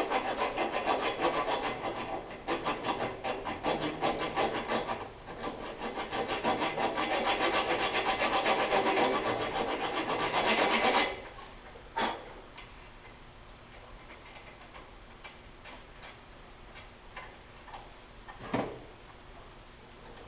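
Thread repair file rasping back and forth over a steel bolt's threads in quick strokes, dressing threads damaged by hammering the bolt straight. The filing stops about eleven seconds in, followed by a couple of light knocks.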